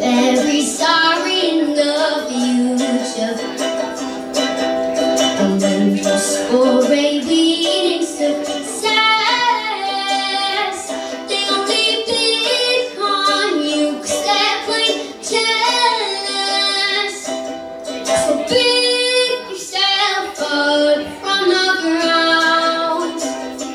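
A woman singing a slow song over her own strummed acoustic string accompaniment.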